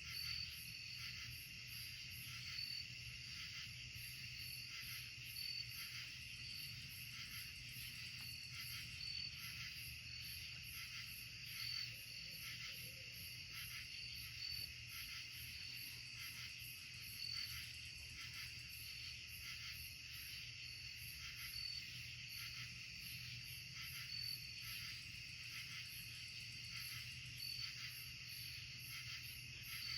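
Night insect chorus of crickets and other insects trilling steadily. A pulsing high chirp repeats evenly throughout, with sharper chirps every second or two.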